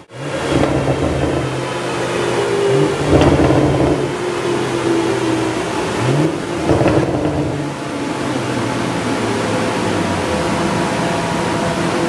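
BMW M140i's turbocharged 3.0-litre straight-six running through a full Akrapovic Evolution Line titanium exhaust, revved twice from idle, about three and six seconds in. Each rev rises in pitch and falls back with a few sharp exhaust cracks, then the engine settles to a steady idle. The crackles come from the exhaust alone on a stage 2 tune, with no pops-and-bangs map in the software.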